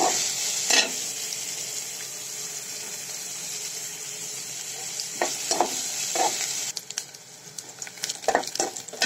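Sliced onions frying in a little oil in a metal pot: a steady sizzle with a few scraping stirring strokes. The sizzle falls much quieter about two-thirds of the way through.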